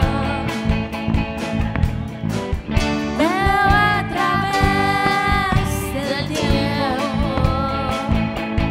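Live rock band playing, with electric guitars, bass and drums under a sung vocal line. About three seconds in, the voice slides up into a long held note that lasts a couple of seconds.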